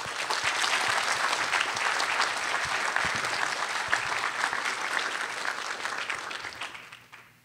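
Audience applauding: many hands clapping steadily, then fading out near the end.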